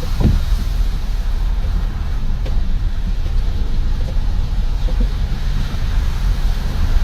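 Car driving at low speed, a steady low engine and road rumble heard from inside the cabin.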